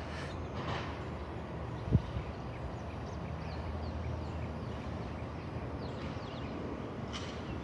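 Recycling truck's diesel engine running steadily some way off, a low rumble, with one sharp knock about two seconds in.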